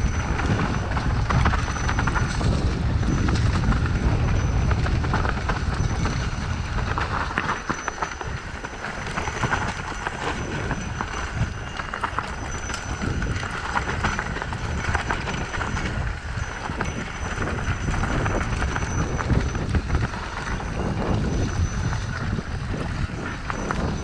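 Mountain bike descending a rough dirt trail: a continuous rattle and clatter of the bike over the ground. A heavy low rumble underneath eases after about eight seconds.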